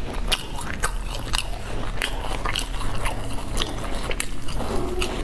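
Biting and chewing a crusty bread roll filled with chocolate, close to the microphone, with irregular crisp clicks from the crust.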